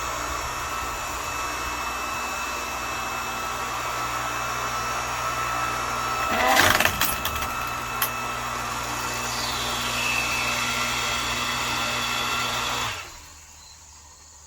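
Electric motor and hydraulic pump of an Earthquake 5-ton electric log splitter running while the ram drives a piece of wood into the wedge. About six and a half seconds in the wood cracks apart, the whine drops in pitch and steadies about ten seconds in, and the motor stops sharply about thirteen seconds in.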